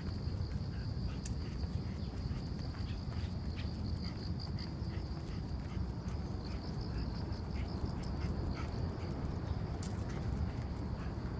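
Insects trilling steadily at a high pitch from the roadside shrubbery, over a constant low rumble, with scattered light ticks of footsteps on the pavement.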